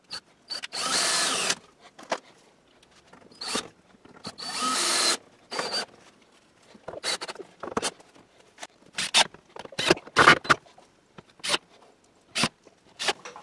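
Power drill running in two bursts of about a second each, backing out a screw in a wooden truss gusset. Then a string of short clicks and knocks as a galvanized sheet-metal vent thimble is worked into place under the gusset.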